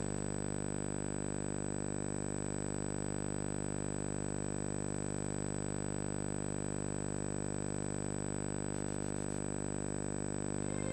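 Steady electrical hum with a thin high whine, unchanging throughout and with no programme sound: the background hum of a VHS playback and capture chain.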